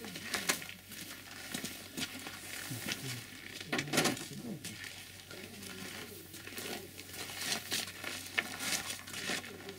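Irregular crunching and rustling on packed snow, with scattered clicks and scrapes of metal tools as a car jack and its bar are worked. The loudest knock comes about four seconds in.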